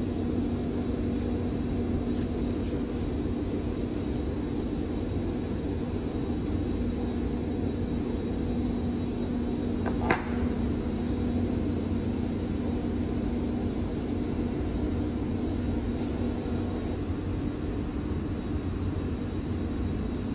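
Steady machinery drone with a constant low hum, and a single short, sharp sound about halfway through.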